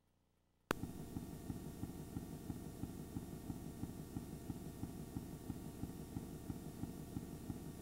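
A sharp click under a second in, then a steady low hum full of fast, irregular crackle.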